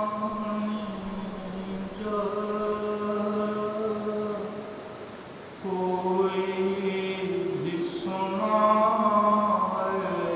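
A man chanting an unaccompanied Karbala elegy for Muharram, drawing out long held notes in phrases of a few seconds. The voice fades about halfway through, then comes back strongly.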